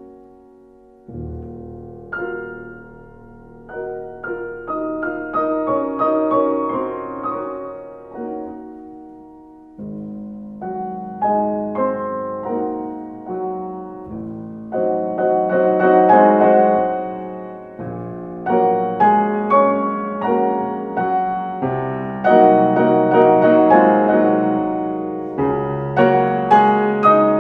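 Background piano music: a slow solo piano piece of single struck notes and chords, each ringing and fading. It starts sparse and soft, then grows fuller and louder about halfway through.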